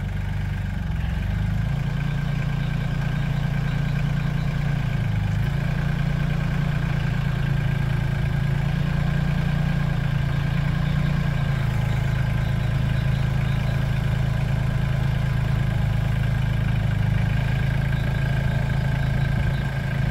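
Compact tractor engine running under load while the tractor maneuvers with a loaded front-loader grapple, its engine note stepping up and down several times. A faint steady high whine runs alongside.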